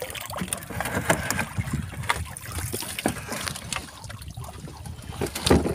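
Seawater splashing and streaming off a bamboo-framed mesh fish trap as it is hauled up beside an outrigger boat, with scattered knocks from the trap frame bumping the hull. The loudest knock comes near the end.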